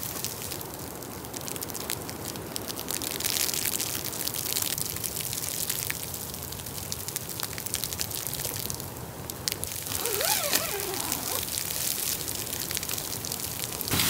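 Wet sleety snow falling and pattering in a steady hiss of fine taps, as on tent and tarp fabric. About ten seconds in there is a short, wavering squeaky sound.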